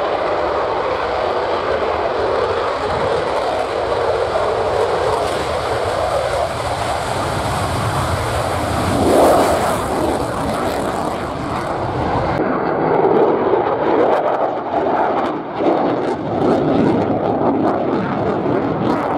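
Eurofighter Typhoon's twin jet engines in afterburner as it takes off and climbs steeply: continuous loud jet noise that peaks about nine seconds in. In the second half it turns to a ragged crackle.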